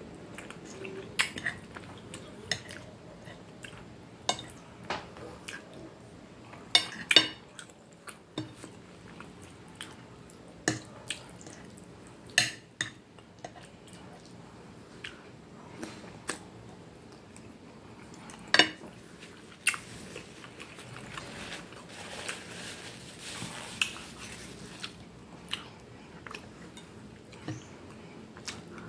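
Close-miked chewing and mouth sounds of someone eating pasta with meatballs in tomato sauce, with a knife and fork clicking and scraping on the plate now and then in short sharp clinks.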